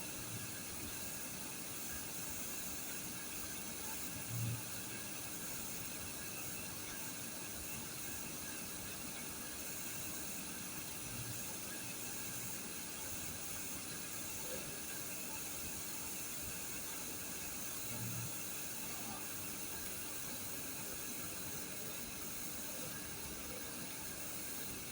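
Steady background hiss with a few faint low thuds, two of them slightly louder.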